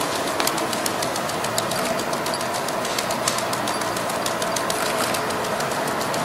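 Five juggling balls caught in quick succession in a speed-juggling run: a fast, even patter of slaps into the hands, about seven catches a second, over a steady background hiss.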